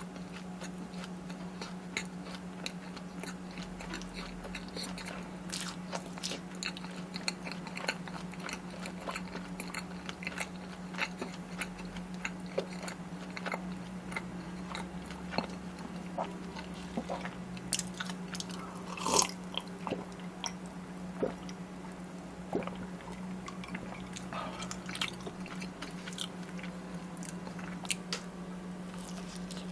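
Close-miked eating: crunchy bites and chewing of fried corn dogs and cheese snacks, with many small crackling clicks and one louder crunch about two-thirds of the way through. A steady low hum runs underneath.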